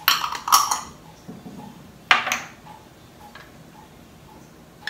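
Small glass jars and their lids clinking and knocking as they are handled and set down on a table: a quick cluster of knocks at the start and another single knock about two seconds in. Faint regular ticking about twice a second runs underneath.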